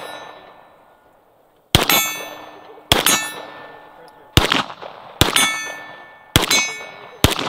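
Gunshots on an outdoor range, six at uneven intervals of about a second, each followed by a ringing metallic clang of steel targets being hit.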